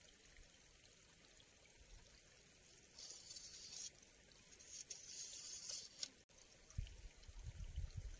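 Faint outdoor ambience: a steady high-pitched hiss, two short bursts of rustling hiss in the middle, and low bumps starting near the end.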